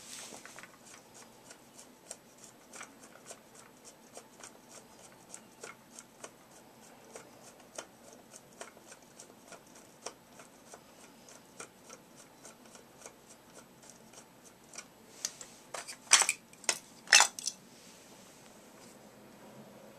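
Small plastic clicks and ticks from hands handling the parts of a Swivel Sweeper, a few a second. About three-quarters of the way through come several louder plastic snaps as the green plastic part is unclipped from the sweeper's base.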